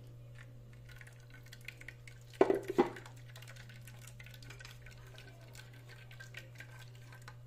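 Blended corn-and-milk mixture draining through a plastic sieve into a stainless steel bowl while a wooden spoon stirs in the sieve, with faint light clicks throughout. There are two brief louder sounds about two and a half seconds in, over a steady low hum.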